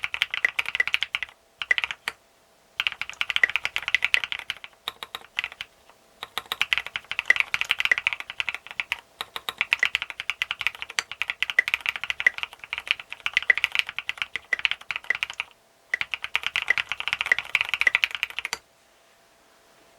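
Mechanical keyboard with retooled Cherry MX Black linear switches, a plastic plate and SA-profile keycaps being typed on fast, in bursts of keystrokes separated by brief pauses; the typing stops shortly before the end.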